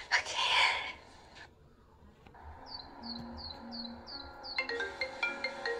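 A brief vocal sound in the first second, then light transition music: a run of about six short, high chirping notes over low held tones, followed from about four and a half seconds in by bell-like mallet notes.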